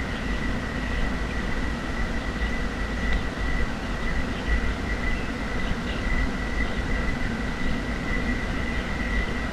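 Steady outdoor ambience picked up by a moving camera: a low rumble and hiss, with a thin, steady high-pitched whine throughout and a few faint high chirps.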